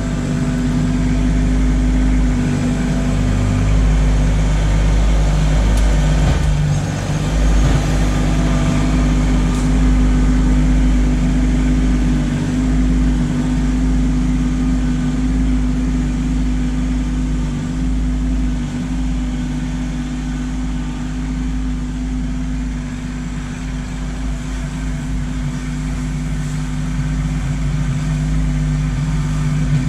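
Kubota LX2610 compact tractor's three-cylinder diesel engine running steadily at a constant speed.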